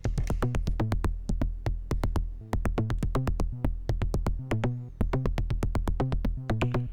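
Make Noise Shared System Eurorack modular synthesizer playing a synthesized drum-and-bass style beat. Rapid sharp ticking hits, about eight a second, run over a deep synthesized kick that doubles as the bass line, with stepping pitched synth notes.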